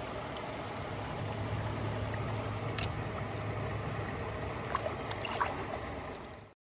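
Shallow stream running steadily over stones, with a few light splashes and clicks in the middle and later on as a hand lowers a small fish into the water to release it; the sound fades out just before the end.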